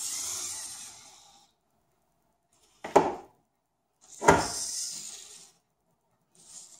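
Hobby servos of a desktop robot arm whirring as the arm swings. Then come two sharp knocks about a second and a half apart as the arm collapses and its parts fall onto the wooden desk, the second followed by a brief clatter.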